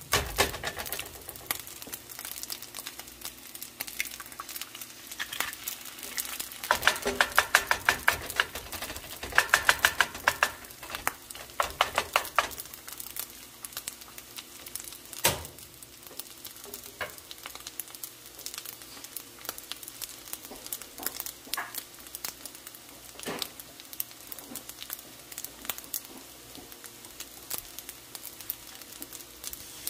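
An egg frying in oil in a skillet beside fried rice: a crackling sizzle, heaviest for several seconds in the middle and lighter after, with a few single sharp clicks.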